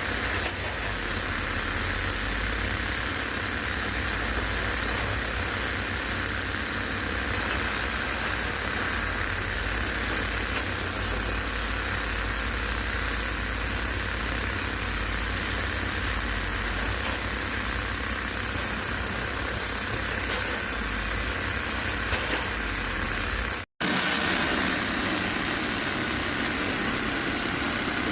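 Heavy diesel engine running steadily at a low, even pace. The sound breaks off for an instant about three-quarters of the way through, then carries on with slightly less low rumble.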